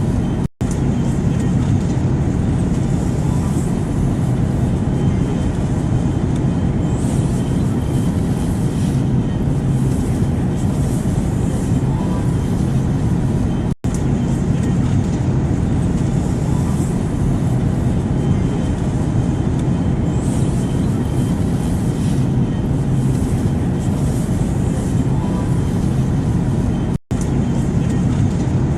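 Steady airplane noise: an even, deep rumble with a faint hum and hiss over it, broken by three very short dropouts about 13 seconds apart.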